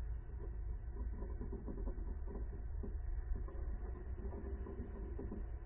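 Steady low rumble of outdoor background noise picked up by the nest camera's microphone, with faint scattered sounds above it and no distinct event.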